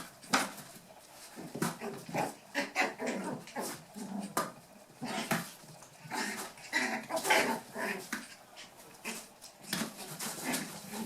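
Eight-week-old toy poodle puppies playing, giving a busy run of short yips, whimpers and little barks, with scattered sharp clicks and knocks.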